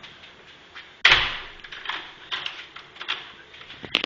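A door banging shut about a second in, with a low thud that dies away, followed by scattered light clicks and knocks.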